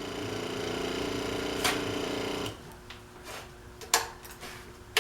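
Motorcycle V-twin engine running steadily with a humming, rhythmic note, then stopping about two and a half seconds in, followed by a couple of sharp clicks or knocks.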